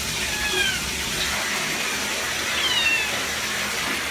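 A cat gives two short, high-pitched, falling meows, about half a second in and near three seconds in, over a steady rush of water in a toilet.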